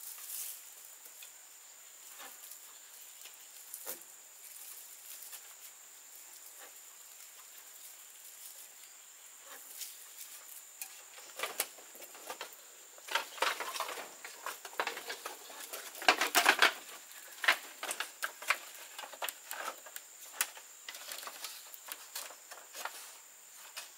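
Irregular rustling, crackling and light knocks, like dry bamboo or leaves being handled. Sparse at first, then busier and louder from about halfway, with the loudest cluster about two-thirds of the way in, over a steady high-pitched whine.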